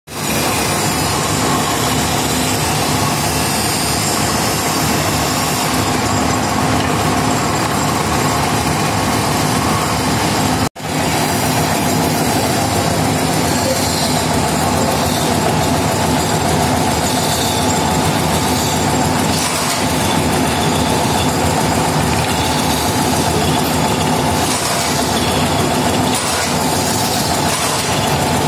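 Belt-driven metal-spinning lathe running steadily while a long hand-levered spinning tool presses sheet steel against the turning form. The noise breaks off for an instant about eleven seconds in.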